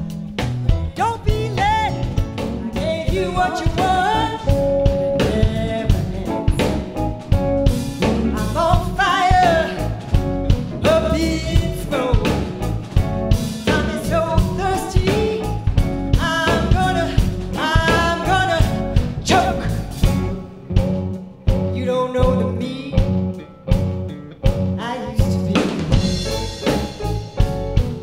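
A band playing live: drum kit with sharp snare hits, electric guitar and bass under a lead melody that bends and wavers in pitch. The music thins out briefly about twenty seconds in, then fills back up.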